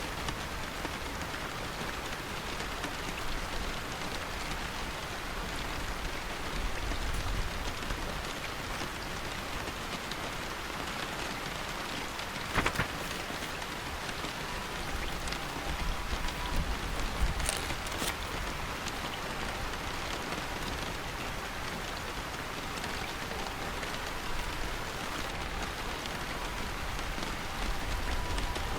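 Steady rain falling, an even hiss with a low rumble that swells and fades now and then. One sharp click comes about halfway in, and a few brief crisp sounds follow a few seconds later.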